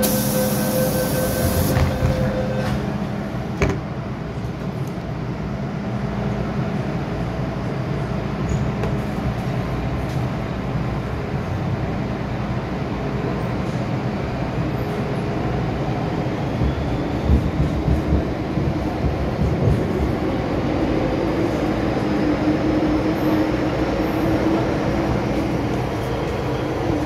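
MTR Island Line M-Train pulling out of a station and running through the tunnel, with a steady rumble of wheels on rail. A brief steady tone sounds at first, and later a faint whine slowly rises in pitch as the train gathers speed.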